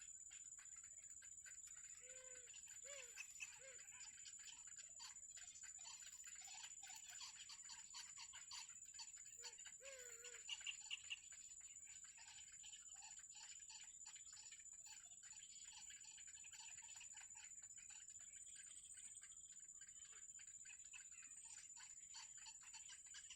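Faint outdoor ambience of insects: a steady high-pitched drone under rapid, dense ticking. A few short, low calls come in about two to four seconds in and again around ten seconds.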